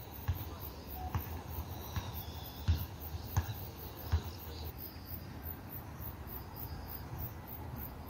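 Outdoor ambience on a handheld camera's microphone: a steady low rumble with a few short knocks, and a faint, high, evenly repeating chirp about three times a second.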